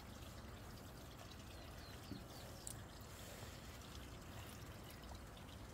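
Faint steady outdoor background noise, with a few faint high chirps about two seconds in.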